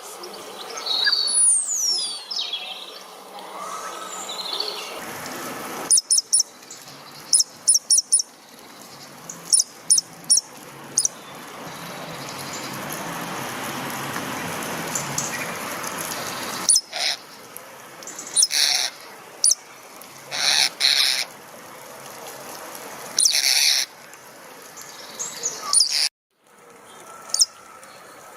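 A starling calling: a few high whistles falling in pitch at first, then a run of short sharp chirps, and later louder raspy chirps in clusters. The audio changes abruptly several times and drops out briefly near the end, as if joined from separate recordings.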